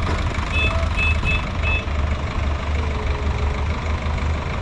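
Sonalika tractor's diesel engine running with a steady, pulsing low throb. A few short high-pitched beeps sound in the first two seconds.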